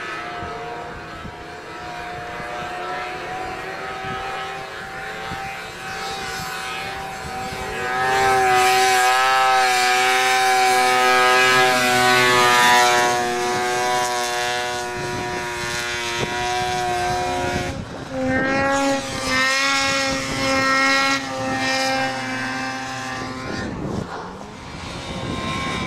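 Snowmobile engines running at high revs as sleds climb the slope, one passing close and loudest from about eight to thirteen seconds in; the engine pitch shifts again just after eighteen seconds.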